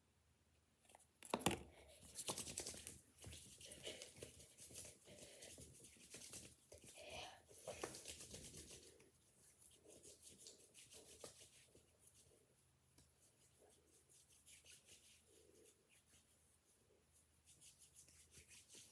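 A sharp click, then faint rubbing and rustling of hands working in hand cream, strongest over the first several seconds and fading to soft, scattered rustles.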